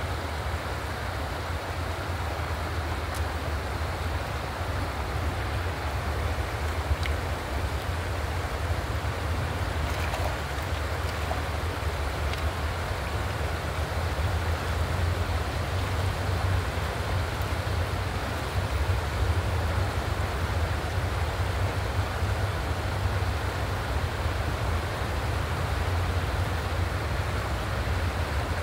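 Steady rush of water flowing over the stones of a shallow river, with a steady low rumble underneath.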